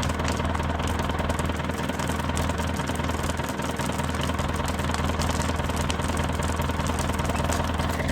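Manitou telehandler engine running steadily at idle with irregular sharp popping ticks over the engine note. The popping is the fault being investigated on the machine.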